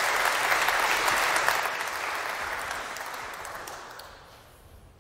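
Audience applauding in a large hall, strong at first and then dying away over the last few seconds.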